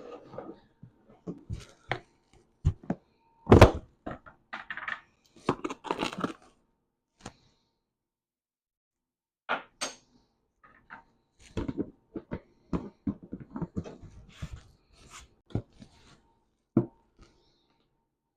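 Scattered knocks, taps and scrapes of a spoon against a saucepan as a tablespoon of sugar is measured into the pan. The sharpest knock comes about three and a half seconds in.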